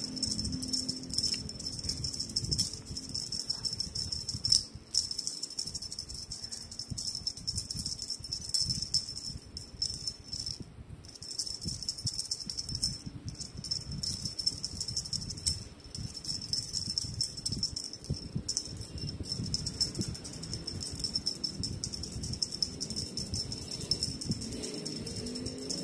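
Cat wand toy rattling and rustling in quick, irregular shakes as a kitten bats and grabs at it.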